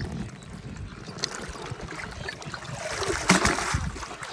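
Water splashing and trickling as a wet cast net is dipped and swished through river water beside a wooden boat, with the loudest splash a little past three seconds in.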